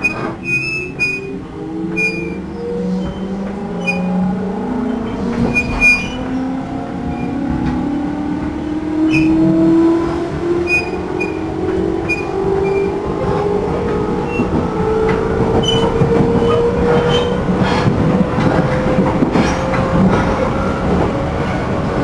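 A JR Central 211 series electric train's MT61 traction motors and gears whining, several tones climbing steadily in pitch as the train accelerates, with scattered clicks from the track. The car is singled out as an abnormal-noise car for its strong pulsing drone.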